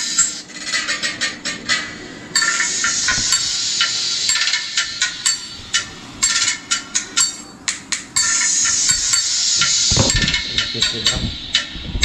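Music played through a Crown CT1000 compression driver tweeter: only the treble comes through, a bright hiss with a fast run of sharp percussion ticks and almost no bass. It gets louder suddenly about two seconds in, and a short low thump sounds near the end.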